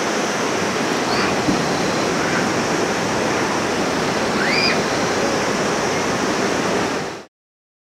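Steady rushing of flowing water, like a mountain river or stream, with a couple of short high chirps; it cuts off suddenly near the end.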